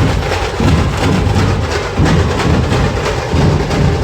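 Loud, dense drumming from a procession band, a steady stream of hits with a heavy low beat under it.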